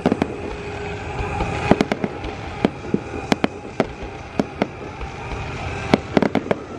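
Aerial firework shells bursting overhead: a run of sharp, irregularly spaced bangs, with several in quick succession near the end.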